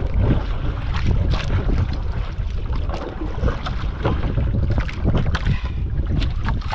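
Wind buffeting the microphone at sea, with water slapping against a small outrigger boat's hull and scattered knocks and splashes.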